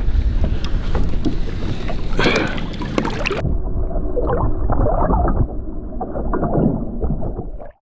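Fishing boat under way on open water: a steady rush of water and motor noise with a few knocks. About three and a half seconds in, the sound abruptly turns muffled, and it cuts off just before the end.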